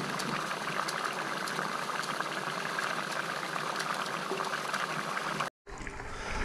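Liquid nitrogen boiling off in a stainless steel bowl: a steady hiss with fine crackling. It cuts off abruptly near the end, followed by a quieter stretch.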